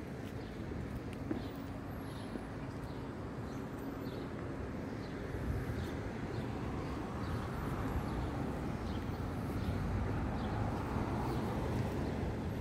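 City street background: traffic rumble that grows louder through the second half, as if a vehicle is approaching or passing, with a few faint high chirps.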